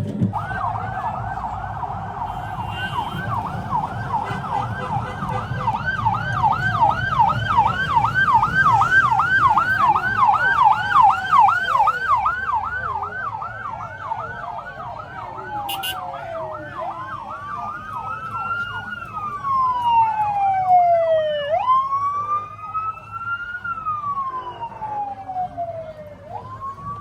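Vehicle sirens. One yelps fast, about three or four sweeps a second, then changes about halfway through to a slow wail that rises and falls every couple of seconds. A second, higher siren joins briefly near the middle of the wail.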